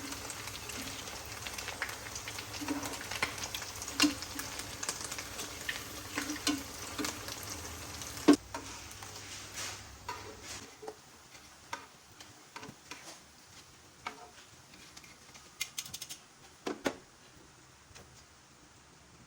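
Food frying in hot oil in a pan, sizzling steadily, with frequent sharp taps and scrapes of a spatula being stirred. The sizzle drops away about ten seconds in, leaving only scattered clicks and clinks.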